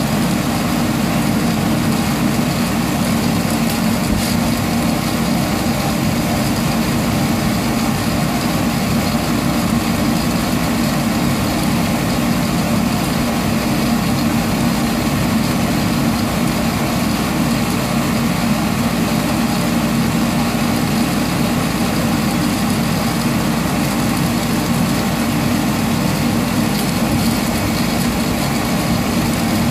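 Sonofresco fluid-bed coffee roaster running: its hot-air blower makes a steady rushing hum as the beans churn in the glass roasting chamber.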